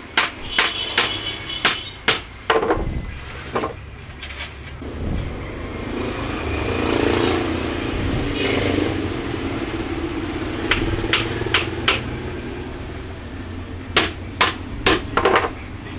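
Hammer blows on a subwoofer box being assembled, in quick groups of two to four sharp knocks. A steady low rumble runs underneath, swelling in the middle.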